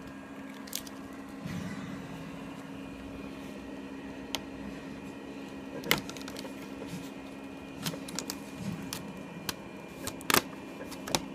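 Cut sign vinyl being weeded by hand off its backing sheet: scattered crackles and sharp clicks as the film peels away, the loudest about six and ten seconds in, over a steady low hum.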